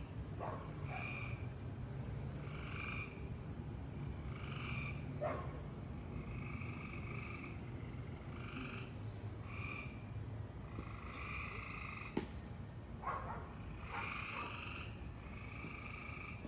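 A frog calling over and over: short croaks about once a second, some drawn out longer, over a steady low hum.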